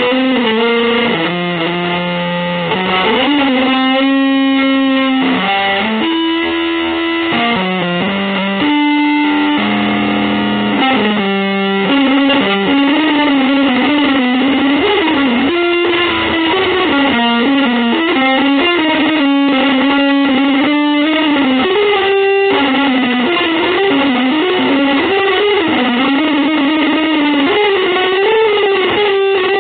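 Electric guitar playing. There are held chords for the first dozen seconds or so, then a single melodic line with sliding, bending notes.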